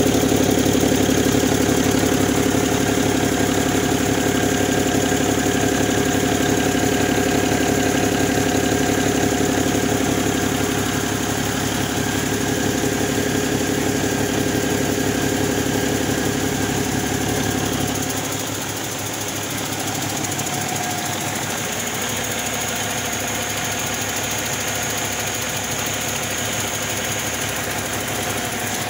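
Cummins ISX12 inline-six diesel engine running steadily on a test stand. About two-thirds of the way through, the deep low part of the sound fades and it becomes slightly quieter and thinner.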